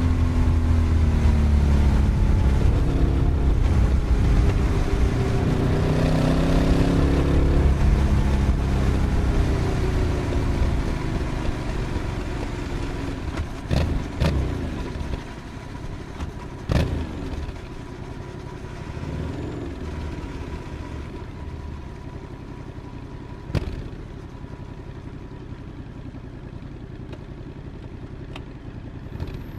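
Yamaha XSR700's two-cylinder crossplane engine running under way, its note falling as it slows, rising with the throttle a few seconds in, then settling lower and quieter. A few sharp clicks sound in the second half.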